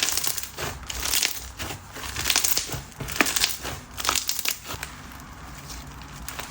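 White glue bingsu slime being squished and pressed by hand: bursts of sharp little pops and crackles from the packed beads, dying down to quieter handling for the last second or so.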